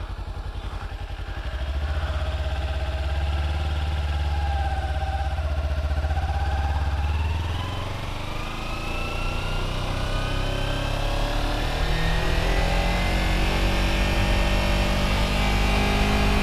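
Sport motorcycle's engine pulling away in first gear and riding off: the revs hold steady for several seconds, drop back about eight seconds in, then climb in a long, steady rise.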